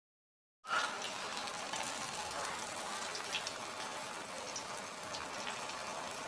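Hot oil sizzling and crackling around breadcrumb-coated banana fritters deep-frying in a small pan. The sizzle starts suddenly just under a second in and then runs steadily.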